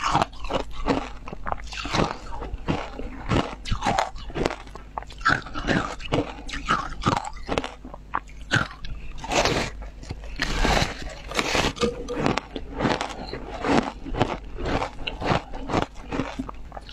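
A person biting and chewing a block of ice dipped in passion fruit pulp: sharp, irregular crunches, several a second.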